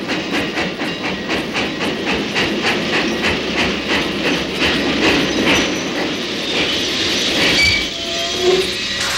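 Passenger train rolling into a station: a steady clickety-clack of the wheels over the rail joints, which dies away after about six seconds, followed by a few short high squeals near the end as it comes to a stop.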